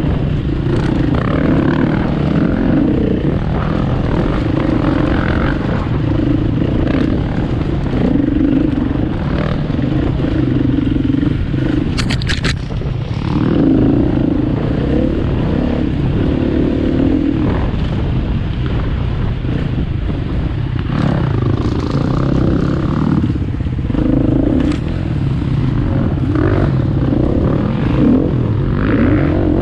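KTM EXC 250 F single-cylinder four-stroke enduro motorcycle engine running under riding load, its revs rising and falling every second or two as the throttle opens and closes. A sharp clatter sounds once about twelve seconds in.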